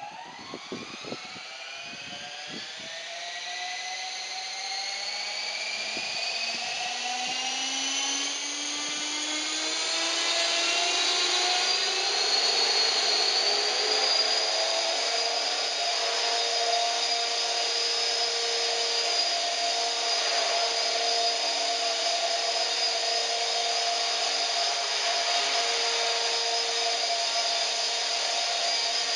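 HK450 electric RC helicopter with a four-blade rotor head spooling up: a whine that rises steadily in pitch and loudness over the first twelve to fourteen seconds, then holds steady in a low hover. The motor is running rough, which the owner blames on crash damage.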